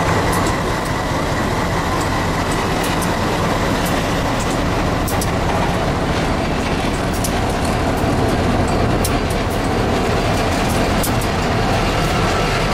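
Diesel freight locomotives passing at close range on street track, a GE C40-8W followed by an EMD SD60, in a steady, loud rumble of engines and wheels on rail with scattered sharp clicks; the tank cars behind them start rolling by near the end.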